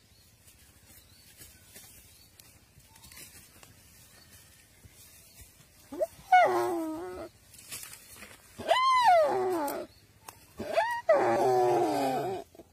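A deer bleating in distress three times in the second half, high arching cries, the last the longest, while it is being eaten alive by a Komodo dragon.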